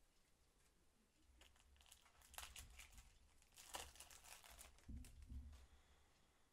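Shiny foil wrapper of a Match Attax trading-card packet being torn open and crinkled. Quick crackles come in two runs, about two seconds in and again about four seconds in, followed by a couple of soft low bumps about five seconds in.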